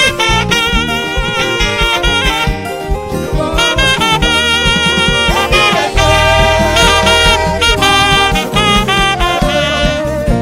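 Instrumental music: a saxophone plays a melody with vibrato over a steady beat and bass, and the bass gets heavier about six seconds in.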